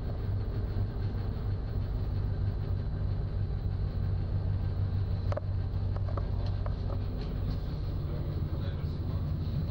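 A ship's engines running with a steady low drone while the vessel is under way. A sharp click comes about halfway through, followed by a few fainter ones.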